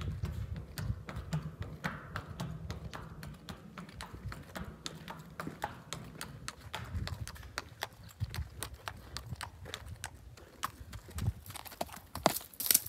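Quarter horse walking, its hooves clip-clopping in a steady series of knocks across a footbridge deck, with a few louder, sharper knocks near the end.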